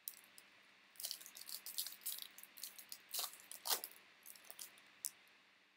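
Crinkling and crackling of a trading card pack's wrapper as baseball cards are handled, in a dense run of short crackles through the middle with a few separate clicks before and after.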